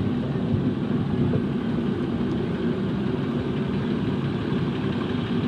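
A car engine idling close by, a steady low rumble.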